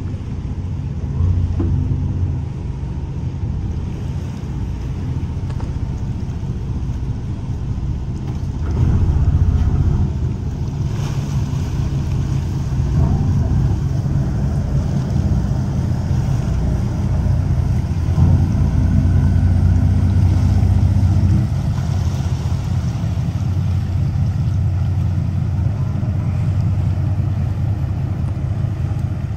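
Engines of an 80-foot motor yacht (ocean cruiser) running at low speed as it pulls away from its berth: a steady low rumble that swells louder about nine seconds in and again around eighteen to twenty-one seconds in.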